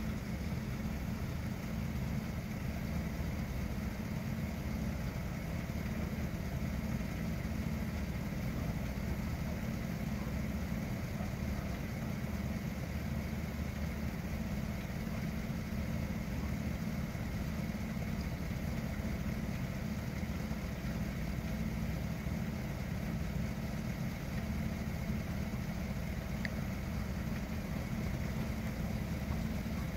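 A vehicle engine idling: a steady low rumble that does not change.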